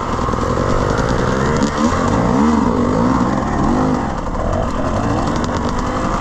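Enduro dirt bike engine revving up and down under load as it climbs a slippery muddy trail, its pitch rising and falling in repeated waves.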